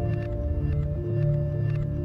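Omnisphere's Unclean Machine "Celeste Clouds" arpeggiator preset playing: celeste-like lo-fi notes struck in quick succession and ringing on over a held low bass tone.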